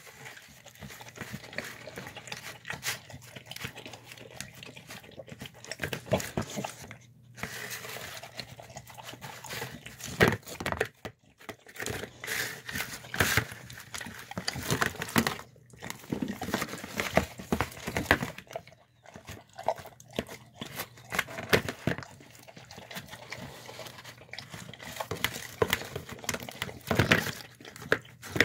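A dog eating a soft meal of chicken and rice from a clear plastic tub: irregular wet chewing, licking and lapping, with its tongue and muzzle knocking and scraping against the plastic.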